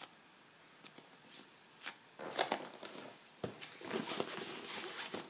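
Rustling and crinkling of a drawstring bag being rummaged through by hand for the next squishy toy. It starts about two seconds in and runs for about three seconds, after a few faint clicks.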